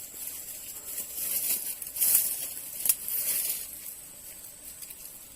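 Rustling and crinkling noises, loudest about two seconds in and again just before three seconds, over a thin steady high-pitched tone.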